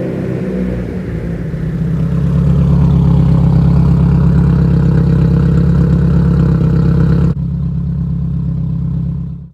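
Turbocharged car engine running steadily under way, a low drone that grows louder about two seconds in. The sound thins abruptly a little past seven seconds and fades out just before the end.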